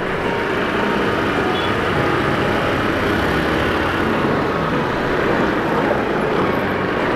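Road traffic heard from a motorcycle crawling in dense traffic: a steady, unbroken mix of engine and road noise with no single sound standing out.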